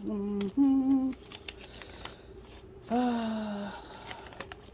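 A woman's wordless thoughtful hums ("hmm"): two short notes in the first second, the second a little higher, then a third about three seconds in that sinks slightly. Light clicks and taps of handling sound between them.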